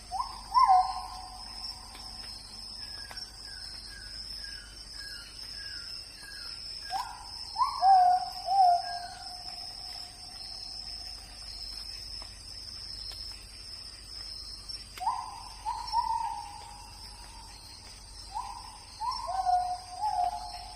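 Forest nature ambience: a bird gives groups of two or three low calls that rise sharply and then hold, at the start, about seven seconds in, and twice more near the end. Between them a run of short higher chirps comes about twice a second, all over a steady high insect drone.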